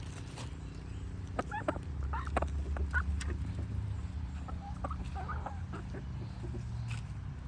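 Chickens clucking in short, scattered calls, with a few sharp clicks, over a steady low hum.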